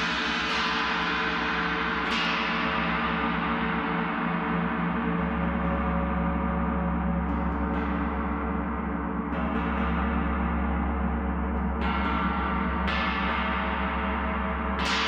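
A gong played continuously: soft strikes every one to three seconds, each adding a bright shimmer that fades into a dense, sustained ringing drone with a deep steady hum beneath it.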